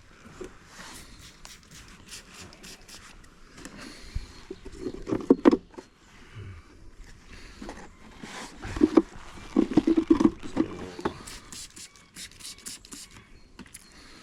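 Wooden beehive frames being handled and set into a hive box: a string of sharp clicks, knocks and scrapes of wood on wood, busier around the middle and again toward the later part.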